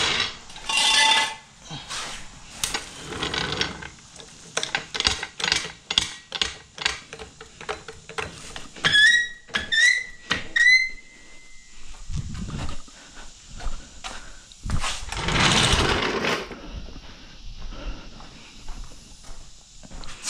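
Steel floor jack being handled on a concrete floor: a run of clanks and clicks, three short rising squeaks about nine to eleven seconds in, and a louder burst of noise around fifteen seconds.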